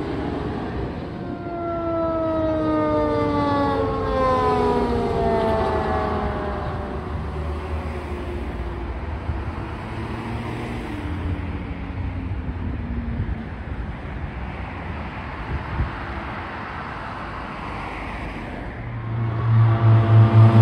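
Fire engine's siren winding down, its pitch falling steadily over several seconds as the truck drives off, over road traffic noise. Music starts near the end.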